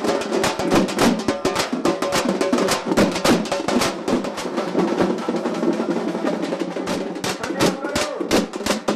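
A troupe of drummers beating large stick-played drums together in a fast, dense rhythm, the sharp strikes overlapping without a break.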